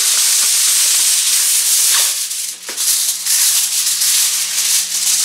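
Aluminum foil crinkling and rustling loudly as a sheet is pulled off the roll and handled.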